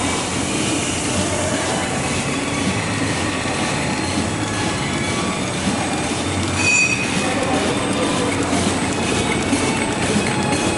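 OPP bag making machine running: a steady mechanical clatter with faint repeating clicks, and one short high squeal about seven seconds in.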